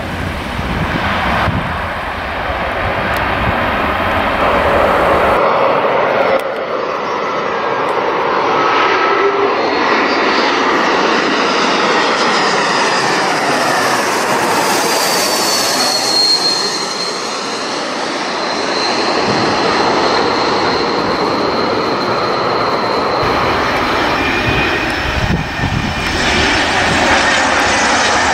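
Jet airliner engines on landing: an SAS Airbus A320 touching down on the runway, then, after a cut, a Swiss Airbus A220 passing low overhead on approach. Its engines give a steady jet rumble with a high fan whine that falls in pitch as it goes over.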